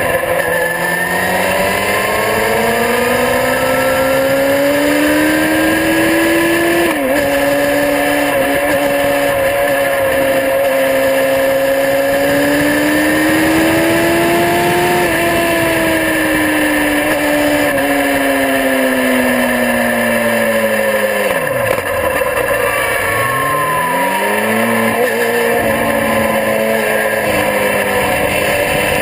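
Motorcycle engine heard from on board at track speed, its revs climbing and falling through the gears: a sharp drop in pitch about seven seconds in, a long climb and a slow fall, then two quick dips and pick-ups near the end. Wind rushes over the microphone throughout.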